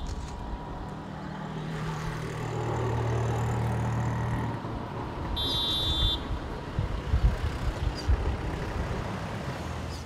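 A passing motor engine, a steady low hum that grows louder for a few seconds and then fades. A short high tone sounds about five and a half seconds in, and irregular low rumbles follow.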